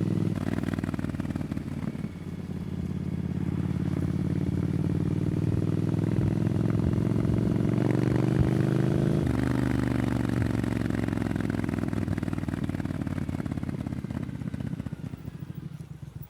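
Triumph Scrambler 900's parallel-twin engine through an Arrow exhaust under way. It gives a short break about two seconds in, then climbs steadily in pitch as it accelerates. About nine seconds in the pitch drops sharply, then falls slowly as the bike slows, fading to low, separate exhaust pulses near the end.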